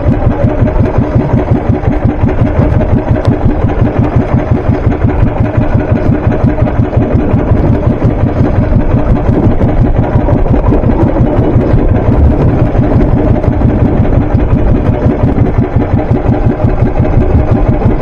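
Small fishing boat engine running steadily with a rapid, even chugging pulse.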